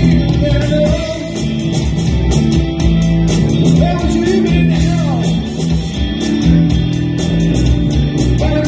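Live rock band playing: electric guitar, bass guitar and drums, with cymbals keeping a steady beat under sustained bass notes and bending guitar lines.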